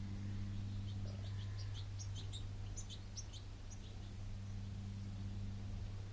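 Small garden bird chirping: a quick run of short, high notes starting about a second in and lasting about three seconds, over a steady low hum.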